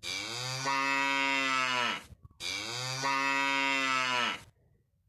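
Cow mooing twice: two long, low calls of about two seconds each, the second following a brief pause after the first.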